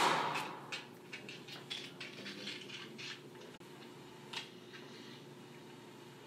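Toothbrush scrubbing teeth: a brief louder rush at the start, then a quick run of short scratchy strokes for about three seconds and one more a little later, over a steady low hum.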